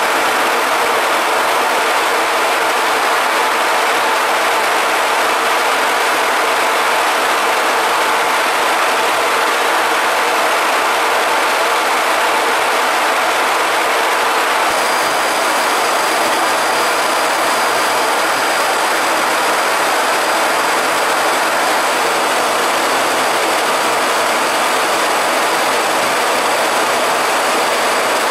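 Steady jet engine and rushing-air noise heard inside a fighter jet's cockpit in flight, with faint high whining tones joining about halfway through.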